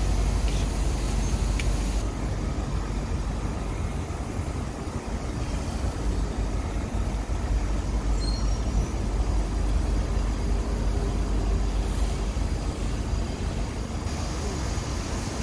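Steady low rumble of road vehicles: driving-school cars moving past and a heavy dump truck's diesel engine running.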